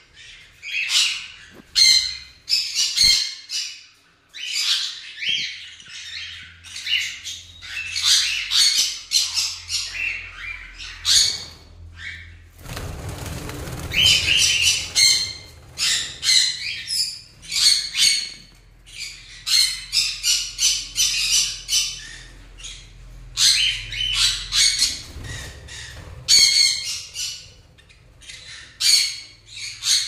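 Caged budgerigars calling: rapid, repeated bursts of shrill chirps and squawks, overlapping and almost unbroken, with a short gap filled by a rush of noise about halfway through.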